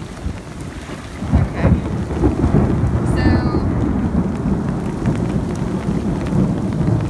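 Heavy rain falling on a flooded street with a low rumble of thunder, growing louder about a second in.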